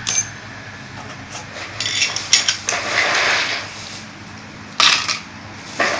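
Small metal vape-mod parts and hand tools clicking and clinking against a metal tin-lid tray in several sharp clusters, with a short rustle of a plastic bag about three seconds in.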